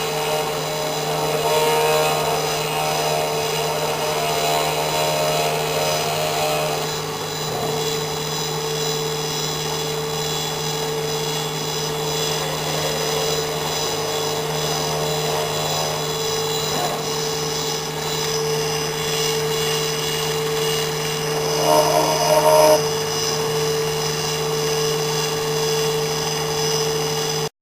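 CNC engraving machine running: a steady motor hum and whine, with the tones shifting slightly as it works, then cutting off suddenly at the very end.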